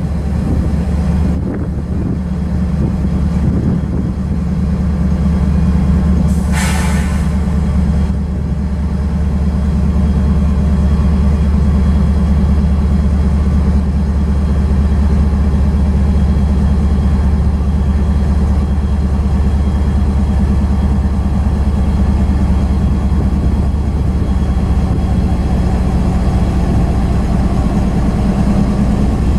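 Freight train rolling past: a steady low diesel-locomotive rumble with the cars clattering along the rails. A brief high squeal comes about six and a half seconds in.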